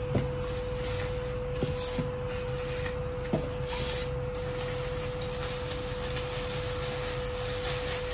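Cardboard box and packing inserts being handled and rubbed as a dry iron is unpacked, with a couple of light knocks, about a fifth of a second in and just over three seconds in. A steady hum runs underneath.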